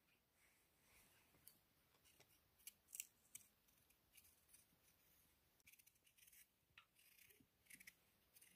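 Knife peeling a raw potato by hand: faint, crisp cutting and scraping strokes, scattered at irregular intervals with a denser run of them in the second half.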